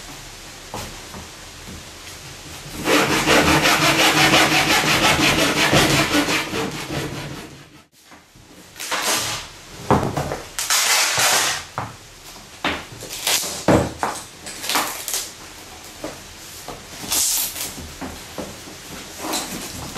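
Hand saw cutting into a wooden picture frame for about four seconds, a loud dense rasping. Then a string of short tearing, scraping and cracking sounds as painted canvas is ripped away and the wooden stretcher bars are pulled apart.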